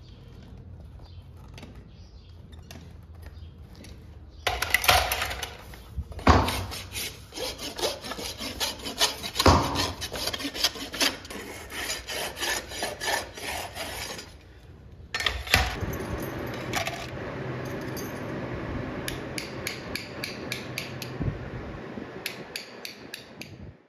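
Farrier's rasp filing a horse's hoof in quick repeated scraping strokes, starting about four seconds in, with a brief pause near the middle before steadier rasping resumes.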